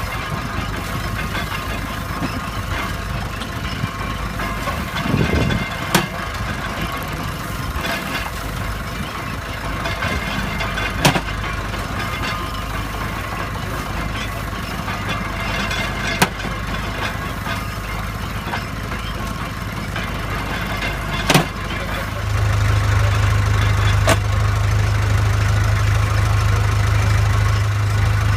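An engine running steadily, with a sharp knock about every five seconds. About three-quarters of the way through, a louder, deeper steady hum sets in.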